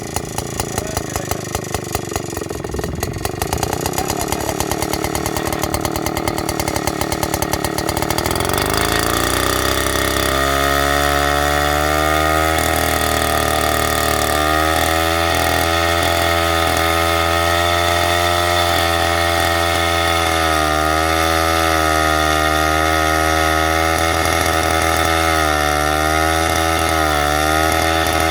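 Vintage Hungarian Kismotor és Gépgyár KL-150 chainsaw engine running slowly with distinct separate firing beats, then revving up about eight seconds in and holding a steady high speed, its pitch wavering slightly.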